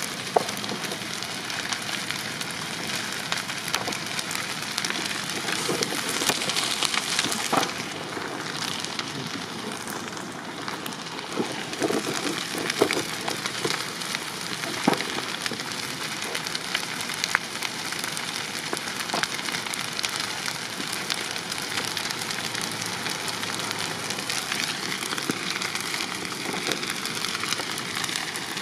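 Wood-frame building under construction burning fully involved: a steady rushing crackle with scattered sharp pops and snaps.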